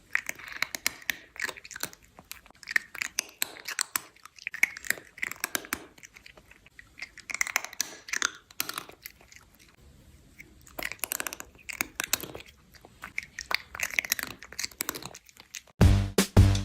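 Close-up chewing, with many small irregular crunches, as of an animal eating crunchy food. Music with a bass beat comes in near the end.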